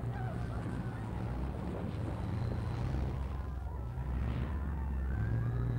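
A heavy machine's diesel engine running with a steady low drone as it pushes down the huts.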